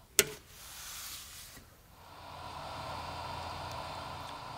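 Eventek KPS3010D bench DC power supply switched on: one sharp click of its power switch, then about a second of hiss that stops.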